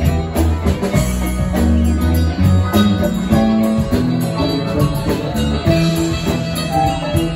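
Live band playing amplified: electric bass, mandolin, electric guitar and drum kit with cymbals, in a steady groove.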